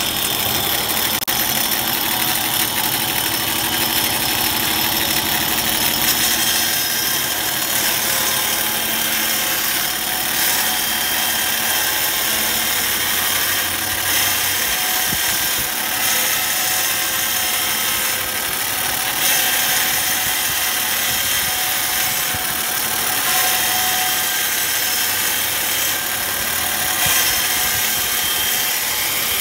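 Band saw ripping a hardwood cladding board lengthwise to 12 mm: the saw runs and cuts continuously, an even noise with a steady high tone through it.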